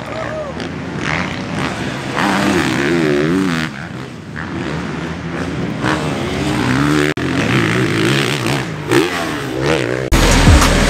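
Motocross bike engines revving hard on the track, the pitch rising and falling again and again as the riders work the throttle and shift through the gears. Near the end it changes abruptly to a louder, different sound.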